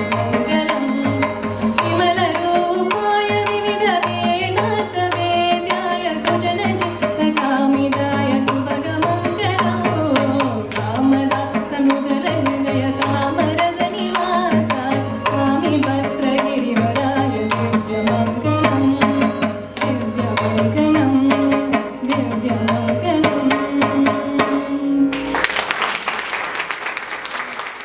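Carnatic music: a woman's voice sings with violin accompaniment over mridangam drumming. The piece ends about 25 seconds in and audience applause follows, fading away.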